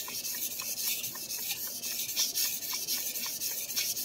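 Stainless steel santoku blade being drawn back and forth across a wet whetstone in quick, even strokes, giving a gritty rasp. The left side of the edge is being ground to raise a burr.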